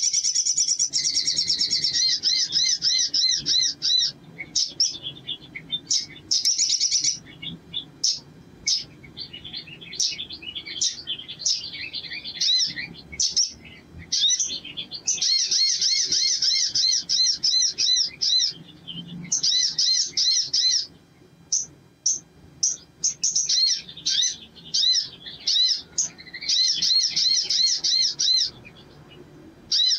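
Male olive-backed sunbird singing long, rapid, high-pitched trilled phrases in repeated bursts of up to a few seconds, with short chirps between them.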